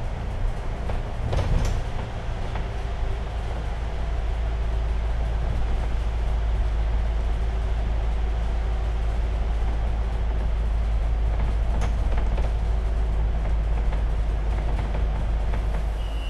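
Steady low rumble of a bus's engine and tyres, heard from inside the bus as it drives through a road tunnel.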